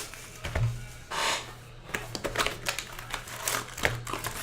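Typing on a computer keyboard: a run of irregular keystroke clicks, with a brief rustle about a second in.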